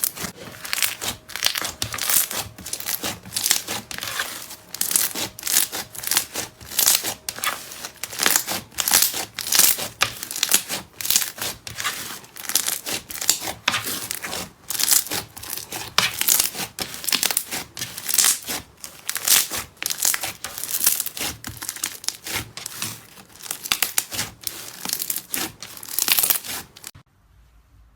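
Slime being squeezed and pressed by hand, giving a dense, irregular run of crackling and popping that cuts off suddenly about a second before the end.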